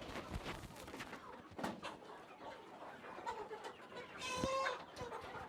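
Chickens clucking in a poultry house: scattered short clucks, with one louder, drawn-out call about four seconds in.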